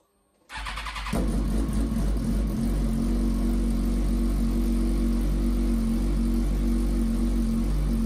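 Suzuki GSX-R1000 K8 inline-four starts: it turns over briefly on the starter about half a second in and catches about a second in. It then idles steadily through twin Cobra SP1 slip-on silencers with the dB killers removed and a decat pipe in place of the catalytic converter.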